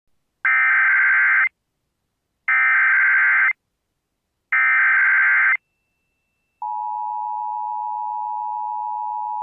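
Emergency Alert System SAME header for a tornado warning: three one-second bursts of data tones, two seconds apart. After about a second's pause comes the steady two-tone EAS attention signal, which starts a little past the halfway point.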